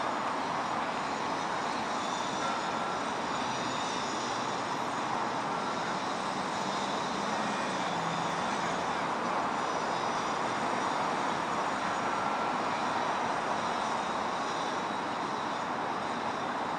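Steady, even rushing noise of distant city traffic.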